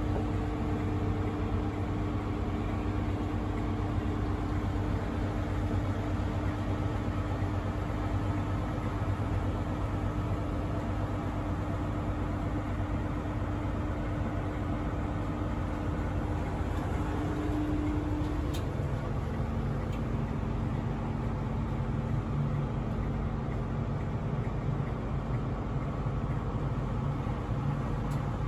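Steady low hum and drone of a stationary Intercity 125 (HST) train: its idling diesel power car and onboard equipment, heard from inside the carriage. A steady tone in the hum drops out about two-thirds of the way through and a lower one takes its place.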